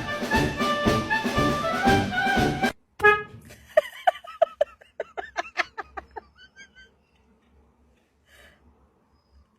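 Jazzy brass music that cuts off abruptly, followed by a quick run of about a dozen short, high pitched calls, three or four a second, that fade away.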